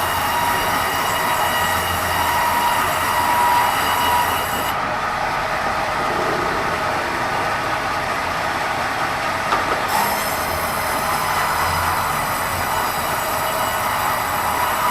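Sawmill band saw running steadily with a whine of several steady tones over a noisy hiss as it saws red meranti. The high hiss drops away from about five to ten seconds in, then returns.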